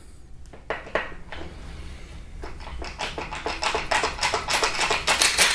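Light metallic clicking and clinking as a camshaft bearing cap is worked loose by hand from the aluminium cylinder head of a Hyundai 2.4 GDI engine. The ticks come quicker and louder over the last couple of seconds as the cap comes free.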